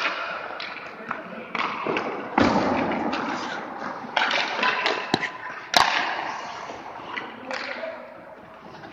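Hockey goalie practice on ice: sharp knocks and thuds of pucks and sticks striking pads and equipment, several close together about five to six seconds in, between stretches of scraping noise.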